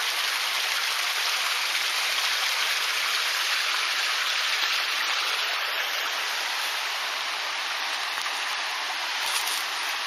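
Steady rushing of water from a forest stream and small waterfall: an even hiss with no breaks and little low rumble.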